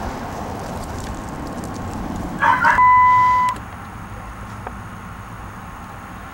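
One steady electronic beep, a flat high tone lasting under a second, starting just before the halfway point and cutting off abruptly. It is preceded by a brief rustling burst.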